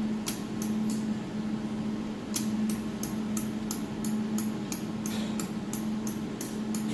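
Light, sharp clicks from a laser welder's beam-alignment knob being turned: three quick clicks near the start, then a regular run of about three a second from about two seconds in. The clicks sit over the machine's steady hum.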